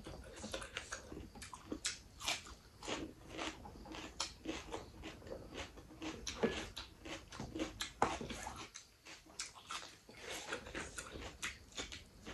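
Close-miked chewing and crunching of rice with raw salad, onion and cucumber slices, eaten by hand: a steady run of irregular crunches and wet mouth sounds.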